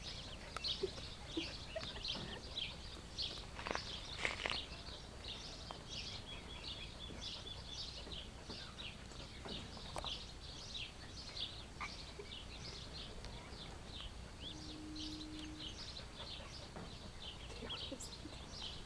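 Ducklings peeping continuously: a dense run of short, high-pitched chirps, several a second, with a brief low hum about three-quarters of the way through.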